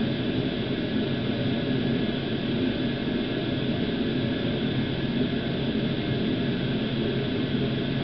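Steady, unchanging mechanical drone with a constant low hum under an even hiss.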